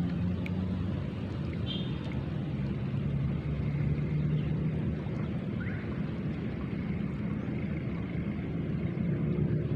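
A small engine running steadily, a low drone that wavers slightly in pitch.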